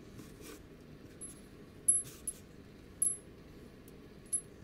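Small steel socket-head bolts clinking against one another as they are handled and set down: about five short metallic clinks with a light ring, the loudest about two and three seconds in.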